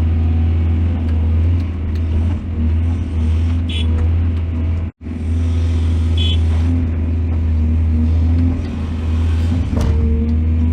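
Heavy diesel excavator engine running steadily with a deep drone, with two brief high-pitched metallic squeals. The sound cuts out for an instant about halfway through.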